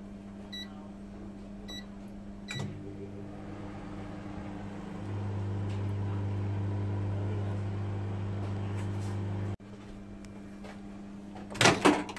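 1100-watt microwave oven: three short keypad beeps as the cooking time is entered, then the oven starts with a steady low hum that grows louder a couple of seconds later as it heats. The hum cuts off abruptly, and near the end the door is opened with a loud clack.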